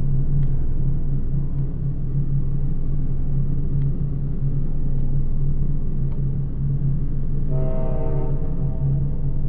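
A steady low rumbling drone, with a brief horn-like tone rich in overtones sounding for about a second near the end.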